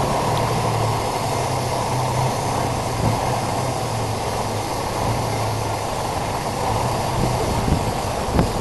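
GMC cabover semi-truck's diesel engine idling with a steady low hum, with wind rushing over the microphone.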